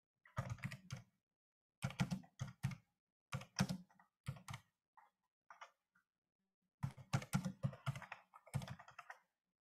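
Computer keyboard typing in about five short bursts of rapid key clicks, the last burst the longest, picked up faintly over a video call's microphone.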